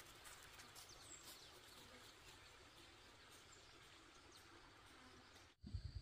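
Near silence: faint outdoor field ambience with a few faint chirps. A low, pulsing rumble starts suddenly near the end.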